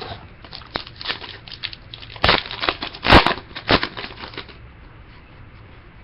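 Foil trading-card pack wrapper crinkling and tearing as it is opened, with cards handled, in an irregular run of crackles that is loudest two to three seconds in and dies away after about four and a half seconds.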